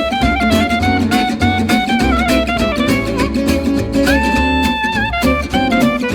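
Instrumental music with a steady beat and a moving melody; one note is held for about a second, about four seconds in.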